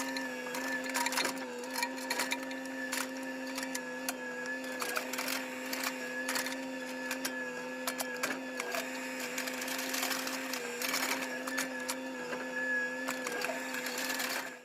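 A machine running at a steady pitch, a constant hum with slightly wavering overtones, with scattered clicks and knocks over it. It cuts off abruptly at the very end.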